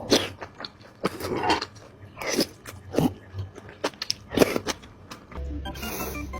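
Close-miked eating of seblak: biting and chewing at irregular intervals. Music comes in near the end.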